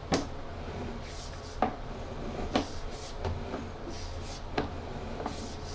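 Sewer inspection camera's push cable being fed down a drain pipe: several sharp knocks about a second apart over a steady low hum.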